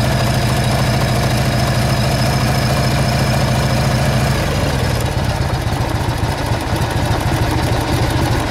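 Harley-Davidson 1340 Evolution air-cooled V-twin idling cold, now firing on both cylinders after a missing spark plug connection had left it running on one. About halfway through, the idle settles lower and less even: a low idle, put down to the engine being cold.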